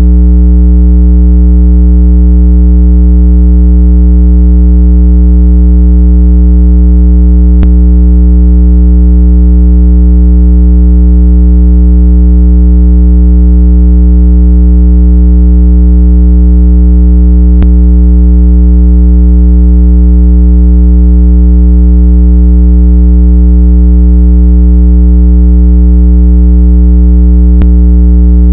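Loud, steady, low electronic tone with a stack of overtones, a speaker-cleaning sound played to shake water out of a phone's speaker grille. It holds one unchanging pitch, with a faint click about every ten seconds.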